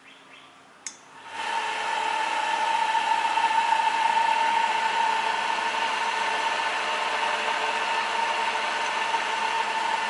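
A power switch clicks, and about a second in the electric motor of an SS-SM05 bench enameled-wire stripping machine starts. It spins its conical fiberglass stripping wheels and runs steadily with a strong, even whine.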